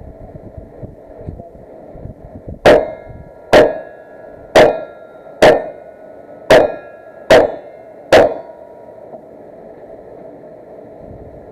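Seven gunshots in a steady string about a second apart, each followed by a brief metallic ring from struck steel targets.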